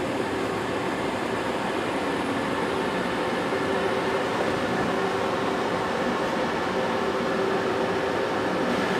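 VR Sm3 Pendolino electric tilting train standing at the platform, its cooling fans and auxiliary equipment running with a steady hum and a few steady whining tones.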